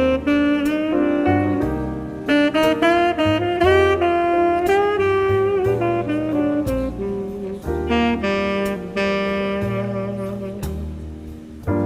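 Jazz music with a saxophone playing the melody over a walking bass line and drums.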